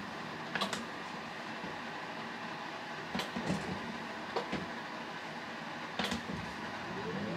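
Steady background hum of a small room, with a handful of light taps and knocks as hands move over a desk. A faint pitched sound rises in near the end.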